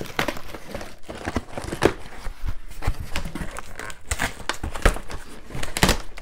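Packing tape being peeled and torn off a cardboard shipping box, with the cardboard flaps crinkling and scraping. It comes in irregular bursts with a few sharp loud rips.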